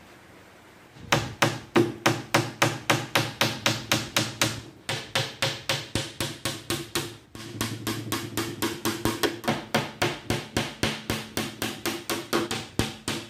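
Claw hammer nailing a plywood cabinet panel: quick, evenly spaced blows at about four a second, each with a hollow ring from the plywood box. They start about a second in and pause briefly twice.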